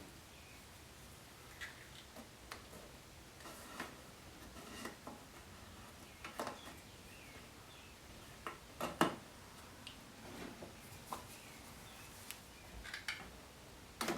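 Scattered light taps, clicks and short scrapes of hand work on a wooden display case, the loudest knock about nine seconds in.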